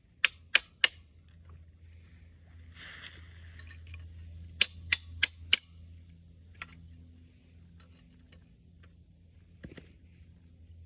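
Hammer striking a steel pry bar to drive a retaining ring off an engine camshaft: three quick sharp blows, then four more a few seconds later.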